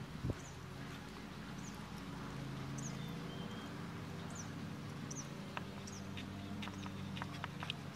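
A horse loping on an arena's sand footing, with a cluster of sharp clicks in the last couple of seconds, while a small bird repeats a high chirp about every half second to second. A steady low hum runs underneath.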